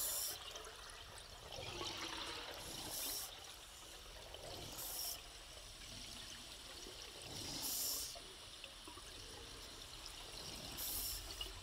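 A scuba diver breathing on a regulator underwater: each exhale releases a rush of bubbles, about every three seconds, over a steady underwater hiss.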